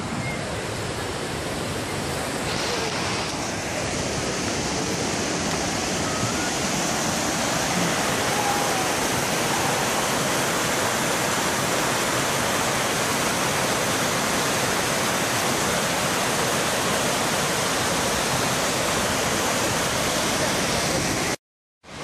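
Large cascading waterfall: a loud, steady rush of falling water that cuts off suddenly just before the end.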